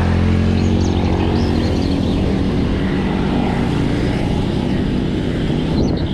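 Tyres rolling on pavement with a steady low droning hum. Birds chirp briefly above it now and then.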